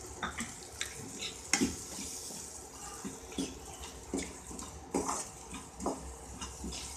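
Steel spoon scraping and clinking against a non-stick kadai as onions and dried turkey berries are stirred in hot oil with chilli powder. The irregular strokes sit over a steady frying sizzle.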